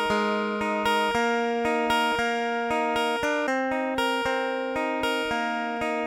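Background music: a plucked acoustic guitar picking a steady pattern of notes.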